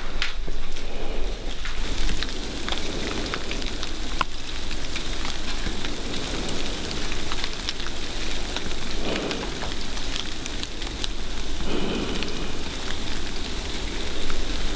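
Freezing rain from an ice storm pattering steadily, a dense hiss of many small ticks.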